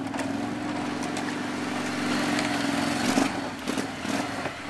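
Max six-wheel off-road vehicle's engine running steadily, its note wavering and easing off a little about three seconds in.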